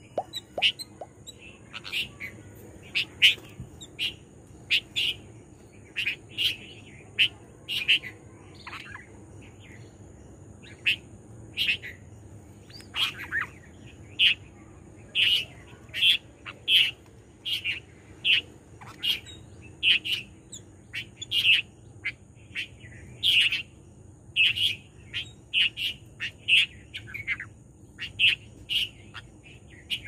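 Red-vented bulbuls calling: short chirps in quick succession, about one to two a second.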